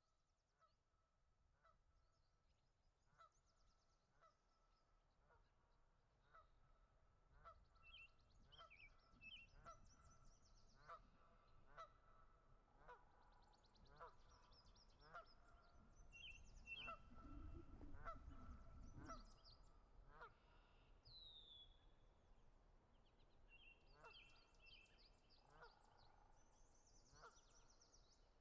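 Birds calling: one bird repeats a short call about once a second, while smaller birds chirp and twitter higher up. A low rumble rises briefly about two-thirds of the way through.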